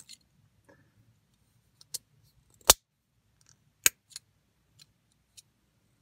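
Plastic back-release buckle clicking as its two identical halves are handled and snapped together: a handful of sharp, separate plastic clicks, the loudest about two and a half seconds in.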